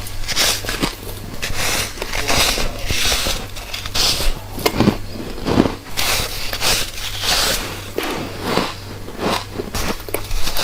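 Repeated close-up bites into refrozen white freezer frost, crisp crunching with some squeak, about one or two bites a second.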